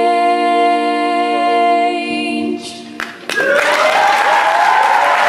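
Several female voices hold the song's final note in harmony, cutting off about two and a half seconds in. After a brief pause an audience breaks into loud applause and cheering with whoops.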